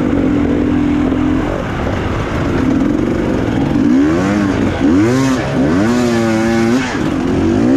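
Enduro dirt bike engine, held at a steady pitch for the first second and a half, then revved up and down over and over from about three seconds in.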